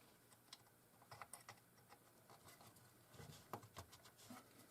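Faint, scattered small clicks and taps of hands handling parts and wiring while reconnecting a jukebox power supply board.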